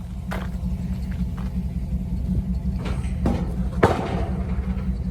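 Vehicle engine running with a steady low rumble, with a sharp knock a little before the end.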